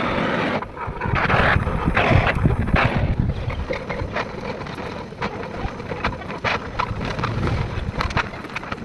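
Electric welding on a motorcycle silencer shell: an irregular crackle of the arc with many small clicks, louder in short runs during the first few seconds and then steadier, while the loose inner mesh is welded back in place.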